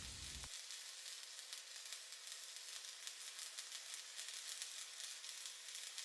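Stick-welding arc on a 7018 1/8-inch electrode burning on steel plate: a faint, steady crackling sizzle.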